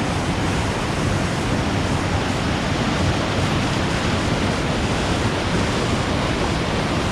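Large waterfall crashing down at its base: a steady, loud rush of falling water.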